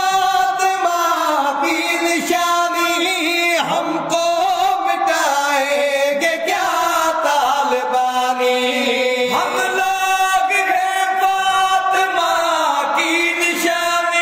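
Men singing a devotional Urdu manqabat in praise of Ali, loud and without instruments, two voices drawing out long, bending notes.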